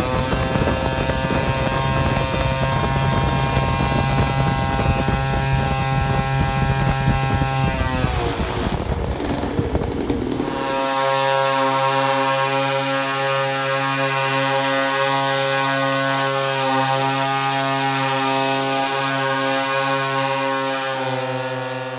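Zenoah G38 two-stroke gas engines running at high revs, dropping in pitch as they are throttled back about eight seconds in. From about eleven seconds a clean, steady held tone of several pitches takes over.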